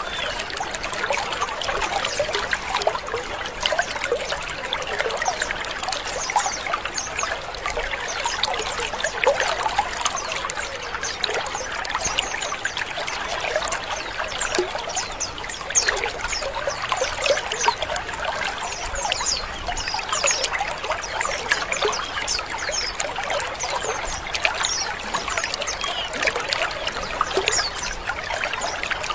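A colony of white-eyes (pleci) chattering together: a dense, continuous twitter of many overlapping short chirps and harsh 'ngrik' calls from birds packed in an aviary.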